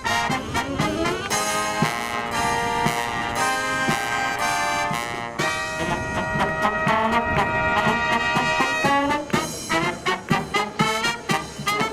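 Live marching brass band playing, trumpets and trombones carrying the tune over percussion hits, with the drum beats more prominent near the end.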